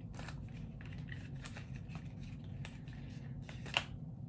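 Rustling and small clicks of hands handling makeup packaging, with a sharper click near the end.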